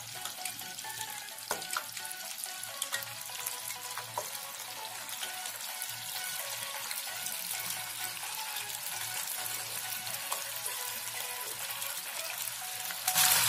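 Battered cauliflower florets deep-frying in medium-hot oil in a steel pan: a steady sizzle with small crackles. Near the end there is a louder burst of sizzling as more pieces are dropped in.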